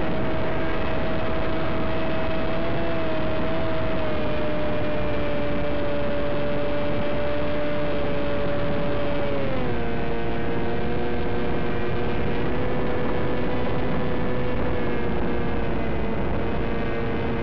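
Radio-controlled aircraft's motor and propeller droning steadily under a constant rushing noise. Its pitch steps down about halfway through and holds at the lower note.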